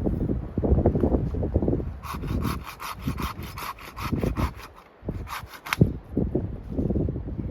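Hand saw cutting through a piece of wood in quick, even strokes, about four to five a second, starting about two seconds in and pausing briefly before a few last strokes. A low rumble with dull thumps runs underneath.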